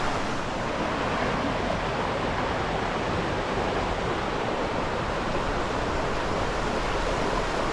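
Flowing river water, a steady, even rush with no breaks.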